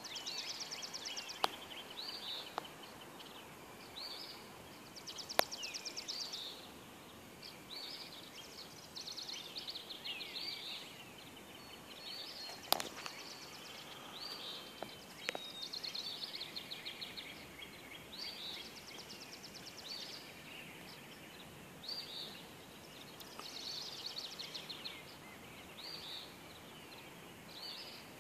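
Pre-dawn chorus of several songbirds: rapid high trills repeat every few seconds, among short chirps and whistled notes. A few sharp clicks stand out above the birdsong.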